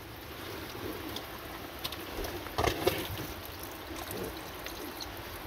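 A thin trickle of water running off algae on a stone wall and falling into a man's mouth as he drinks from it, with a few short mouth sounds.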